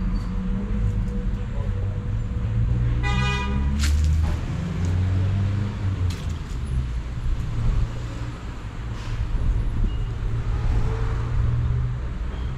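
Street traffic running with a steady low rumble, and a car horn honking once briefly about three seconds in.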